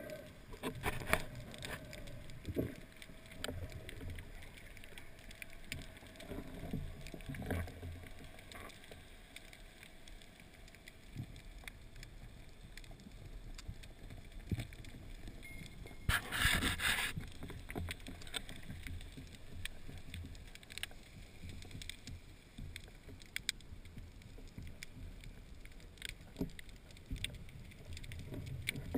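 Muffled underwater sound from a camera in a waterproof housing during a spearfishing dive: a low wash of water noise with scattered clicks and knocks, and a loud hissing burst lasting about a second, about sixteen seconds in.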